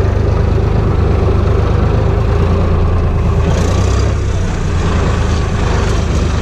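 Farm tractor's diesel engine running steadily at low revs, heard loud and close from the tractor's open cab.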